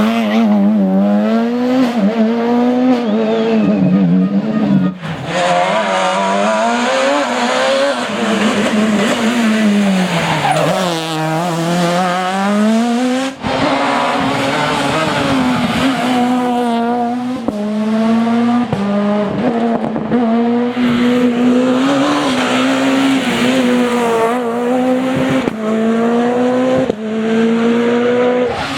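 Super 2000 rally cars' naturally aspirated two-litre four-cylinder engines at full race pace, the pitch climbing and dropping again and again with gear changes and lifts off the throttle. The sound cuts abruptly from one car to another about five seconds and again about thirteen seconds in.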